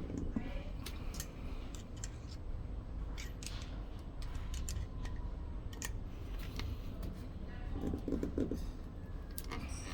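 Plastic parts of a Kaadas S500 fingerprint lock being pried and worked loose by hand and with a small tool: irregular small clicks, taps and scrapes, with a short rattle about eight seconds in, over a steady low hum.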